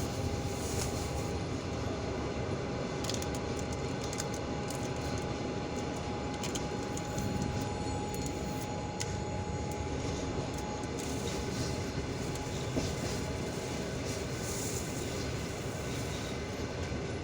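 Passenger train carriage running on the rails: a steady rumble of wheels on track, with a thin steady whine that fades out about three quarters of the way through and a few faint clicks.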